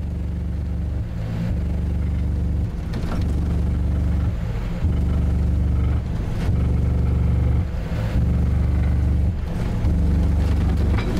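Alphard Hannibal subwoofer in a toilet-bowl enclosure playing a loud, deep bass test tone in long stretches with brief breaks every second or two, with the toilet lid rattling along.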